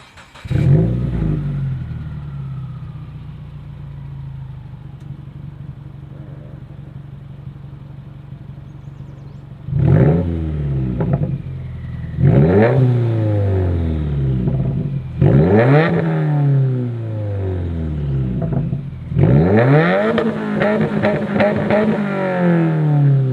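Subaru WRX turbocharged flat-four with an aftermarket exhaust flaring up about half a second in, then idling steadily. It is then free-revved four times, each rev rising and falling back to idle, the last one held longest.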